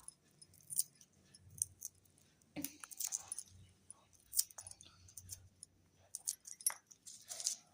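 Garlic cloves being peeled by hand: scattered small clicks and brief crackles of the dry skins coming off.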